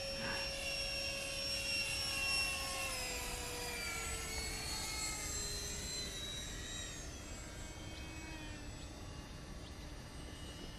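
HobbyKing Panther radio-controlled model plane's motor whining overhead. The pitch holds steady, drops between about three and seven seconds in as the plane passes, then fades away.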